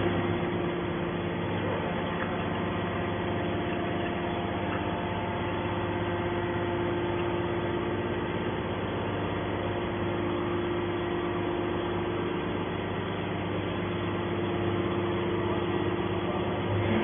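Hydraulic metal baler running: a steady hum of its electric motor and hydraulic pump, without change in pitch or level.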